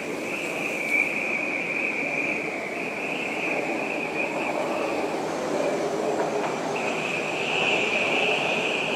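Hurricane wind blowing hard: a steady rush of noise with a high, wavering whistle above it that fades briefly past the middle and comes back stronger.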